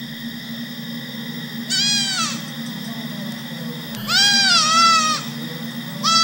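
Young goat kid bleating three times: a short call about two seconds in, a longer wavering one around four seconds, and another starting near the end. A steady low hum runs underneath.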